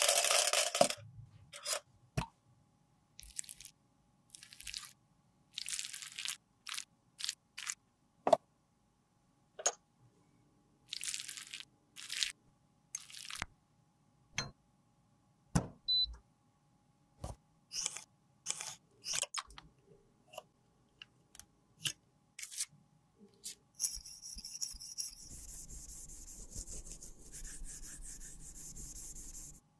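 Close-up handling of makeup tools and containers: a rattle of tools in a metal tool cup at the start, then a string of short clicks, taps and brief brushing rustles. A steady hiss with a low hum runs through the last six seconds or so.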